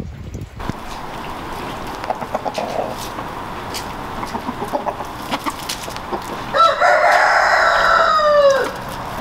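Rooster crowing once, a loud call of about two seconds near the end that falls in pitch as it trails off, with chickens clucking before it.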